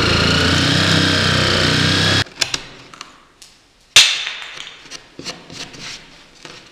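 Corded jigsaw cutting through a plywood panel, its motor running steadily for about two seconds and then stopping. A few light knocks follow, with one sharp knock about four seconds in.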